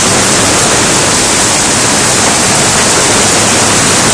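Hail coming down hard: a loud, steady wash of noise without a break.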